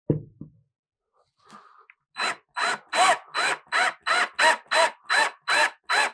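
Cordless drill with a 3/16 in bit starting anchor holes in a wall, its trigger pulsed in quick short bursts about three times a second from about two seconds in, the motor's pitch rising and falling with each burst.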